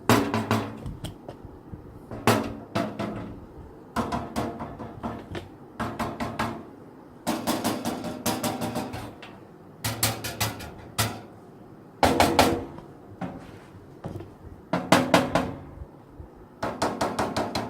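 Knocking on the sheet-metal panels of a First Player Firebase X7 Lite PC case. It comes in quick bursts of several raps every couple of seconds, each with a short metallic ring.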